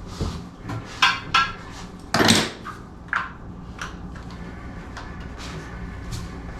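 A series of hard clicks and knocks from toilet parts being handled: the push-button flush mechanism and lid of a one-piece toilet. The loudest is a longer clatter about two seconds in.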